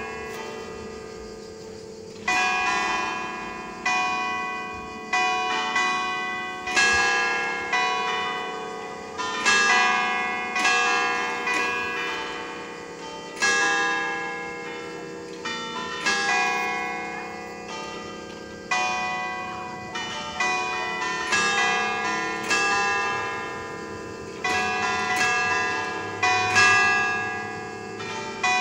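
Carillon played on a peal of five church bells in D cast by Paolo Capanni: the bells are struck one at a time to a tune, each stroke ringing out and dying away. Strokes come about a second apart, sometimes in quick pairs.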